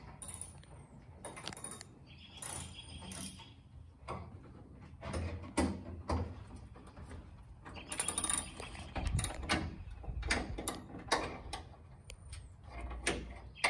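Ford Mustang hood being handled and lowered on its hinges: scattered metallic clicks, creaks and knocks, with heavier thumps around eight to nine seconds in and again near the end.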